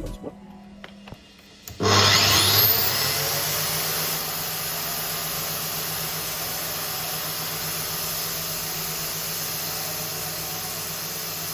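Angle grinder switched on about two seconds in, spinning up with a rising whine, then running steadily with a dense hiss and low hum.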